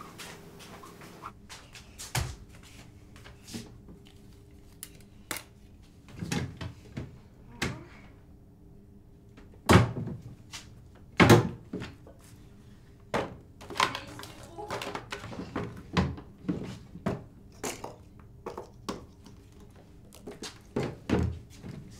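Knocks and clatter of a child rummaging through a cabinet and its drawers, with two louder thunks at about ten and eleven seconds in.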